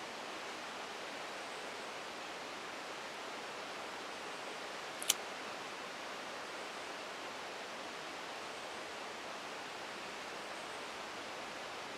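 Steady rushing hiss of a rain-swollen creek running hard, with one sharp click about five seconds in.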